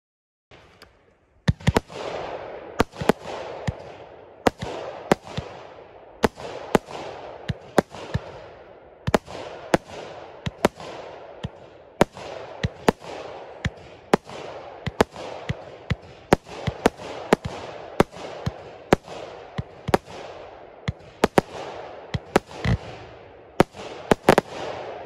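Nikko Blue consumer firework cake firing a long string of sharp shots, roughly one or two a second, with crackling between them. It starts about a second in and runs on for some 24 seconds, the last shots coming near the end.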